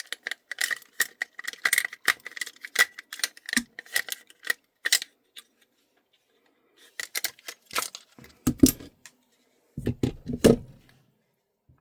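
Metal parts of a Tokyo Marui MWS gas-blowback airsoft rifle clicking and rattling as its bolt is taken out: a quick run of light metallic clicks with a faint ringing note for about five seconds, a pause, then a few heavier knocks and clicks.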